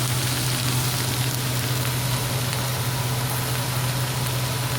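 Cabbage sizzling steadily in a frying pan, with a steady low hum underneath.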